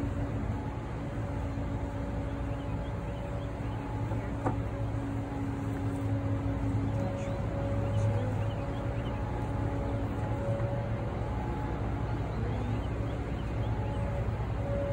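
Honeybees buzzing around an open package and hive, a humming tone that swells and fades as bees fly past, over a steady low rumble.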